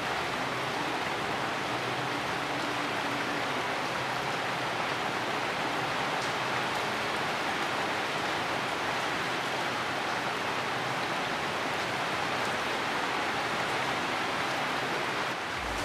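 Steady heavy rain falling on the leaves of a tree, an even hiss without a break.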